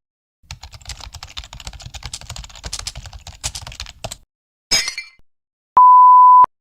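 Rapid computer-keyboard typing, a dense clatter of key clicks lasting about three and a half seconds. A short noisy burst follows, then a loud, steady, single-tone beep of under a second, like a censor bleep.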